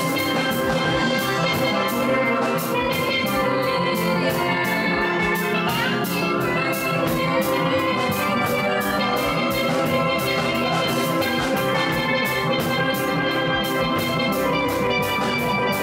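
Steel pan music playing over a steady drum beat.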